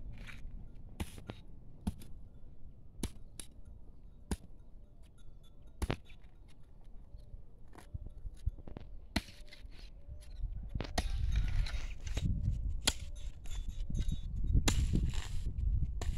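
A hoe blade chopping into dry soil and grass clumps while weeding: sharp, irregular strikes roughly once a second. About ten seconds in, a louder rough scraping noise with a low rumble comes in under the strikes.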